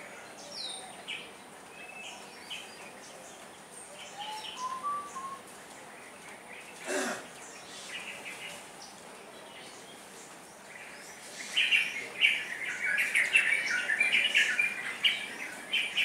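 Asian glossy starlings calling: scattered sharp chirps and a short rising whistle, then a dense, louder run of chattering chirps from about three-quarters of the way through.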